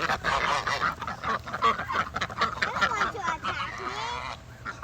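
Ducks and geese calling over one another in a dense chorus of goose honks and duck quacks, thinning out near the end.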